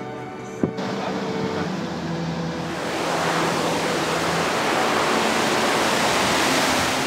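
Rushing river water, a fast, shallow current running over stones, fading in after a short click about a second in and growing louder partway through. Faint music plays beneath it.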